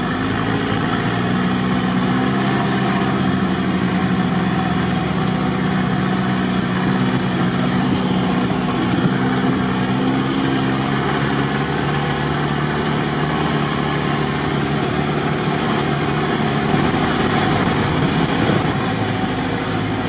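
UAZ-3151 off-roader's engine running steadily as it drives along a sandy dirt track, heard from inside the cabin with wind and road noise. The low engine hum eases off about halfway through.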